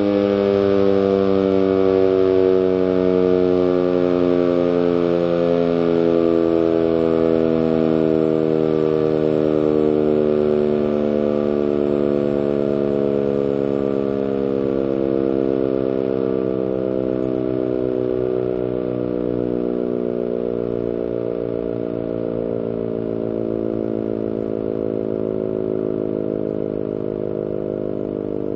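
ACA Banshee 115 outdoor warning siren sounding its test alert as one steady, loud tone rich in overtones. Its pitch sinks slowly and steadily throughout, and it grows a little quieter in the second half.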